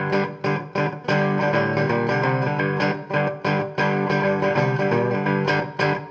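Background music: a guitar-led instrumental with a steady beat.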